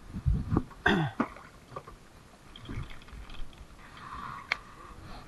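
A person makes a short cough-like throat sound about a second in, followed by a few faint clicks and knocks.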